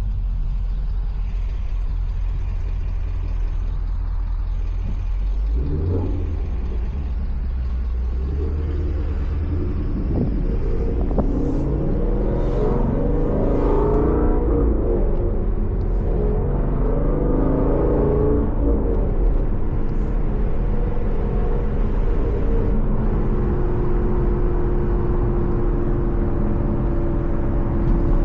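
Ford Mustang GT's 5.0 Coyote V8 through a Corsa Xtreme cat-back exhaust while driving. It starts as a low steady drone, accelerates with rising engine tones from about 8 s to 19 s, then settles into a steady cruising drone.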